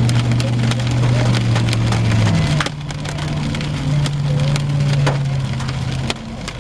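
Hailstones striking a vehicle in sharp, irregular clicks, over a steady low hum that steps up in pitch about two and a half seconds in and fades near the end.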